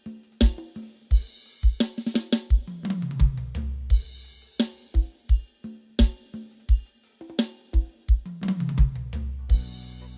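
Drum-heavy music played loud through a sound system for a sound check: a steady kick drum, snare and hi-hat beat, with deep bass that slides down in pitch twice.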